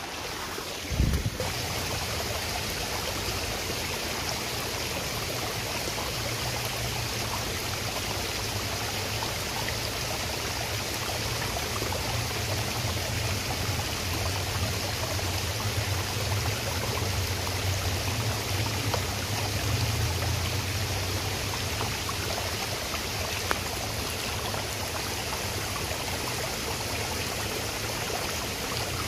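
Steady rush of water flowing in a small stream, with a single thump about a second in.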